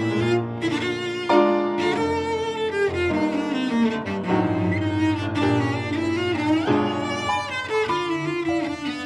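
Solo cello bowed with vibrato, playing a moving melodic line over piano accompaniment.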